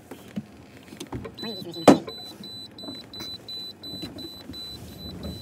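Car interior: a high warning chime beeps rapidly and evenly, about three to four times a second, starting just over a second in. A single loud knock comes about two seconds in, with softer knocks and rustling around it.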